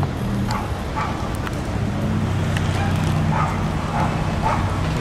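A dog barking several short times over the steady low rumble of passing street traffic.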